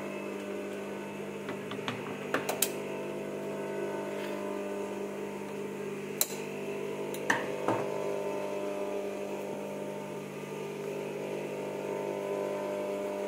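Steady hum of an electric sewing machine's motor, with a few sharp clicks about two and a half, six and seven and a half seconds in.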